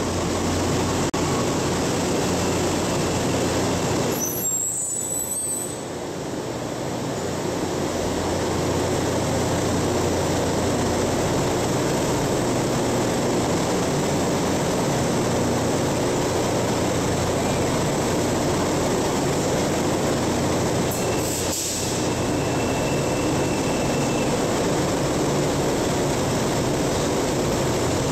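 Santiago Metro NS-07 rubber-tyred train pulling into the platform and braking to a stop in the first few seconds, with a brief high squeal as it halts. It then stands at the platform with its doors open and its onboard equipment running in a steady noise. A short, steady high tone sounds about three-quarters of the way through.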